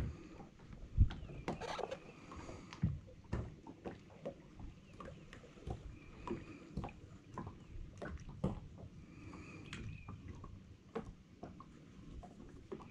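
Faint, scattered knocks and clicks of handling at the water's edge, with three brief faint high chirps spread through.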